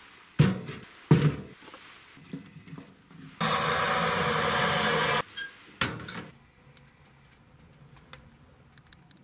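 Split firewood knocked into the firebox of a Kni-Co Trekker steel tent stove: two sharp thunks about half a second apart, then a steady hiss lasting about two seconds that starts and stops abruptly, and one more sharp knock a second after it.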